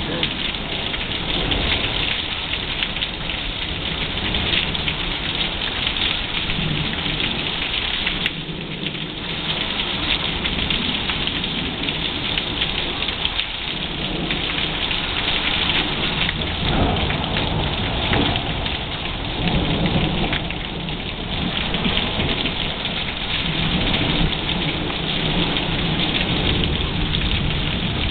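Rain falling steadily during a thunderstorm, with low rolls of thunder swelling and fading several times beneath it.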